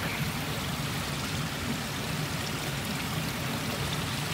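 Small creek water rushing steadily over and between rocks.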